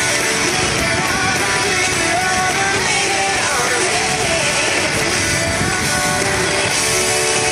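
Rock music with guitar, steady and loud.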